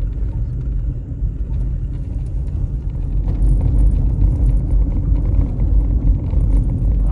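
Steady low rumble of a vehicle driving on a gravel road, heard from inside the cabin: engine and tyre road noise.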